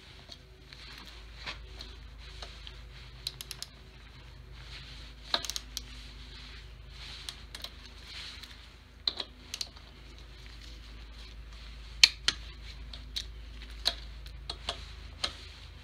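Torque wrench with a hex socket working the crank arm's pinch bolts: scattered sharp clicks and light metallic taps, now and then a few in quick succession, the sharpest about three-quarters of the way through.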